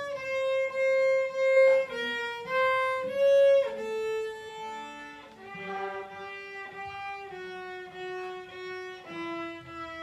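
A class string ensemble of violins, cellos and basses bowing a melody together in D major. Held notes step mostly downward in pitch, note by note.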